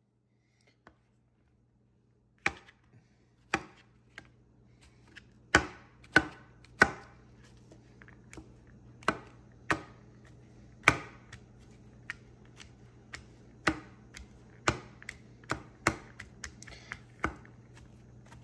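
Chef's knife chopping fresh mushrooms on a thin plastic cutting mat over a granite countertop: sharp, irregular knocks of the blade hitting the board, starting about two and a half seconds in, roughly one a second and coming closer together near the end. A low steady hum runs underneath.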